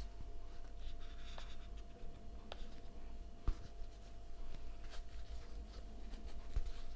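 Crochet hook working T-shirt yarn: soft scraping and rubbing of the yarn against the hook as single crochet stitches are pulled through, with a few faint clicks.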